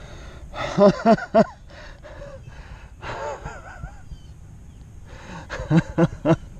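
A man's excited, breathless gasps: three quick ones about a second in and three more near the end, with a softer voiced breath around the middle.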